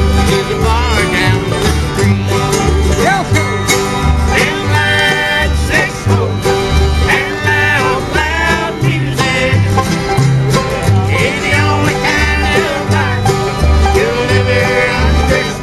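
Live bluegrass band playing an instrumental passage: banjo and guitar over a steady alternating bass line, with melody notes sliding between pitches.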